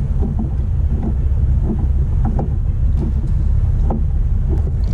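Steady low wind rumble on the microphone aboard a kayak at sea, with faint, irregular small ticks over it.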